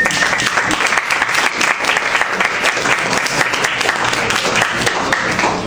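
Audience applauding, a dense steady patter of clapping hands that dies away just before the end.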